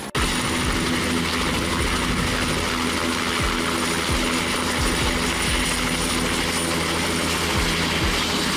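Light helicopter with a two-bladed main rotor running on the ground, rotor turning: a steady turbine whine over the rushing noise of the rotor, starting abruptly just after the beginning.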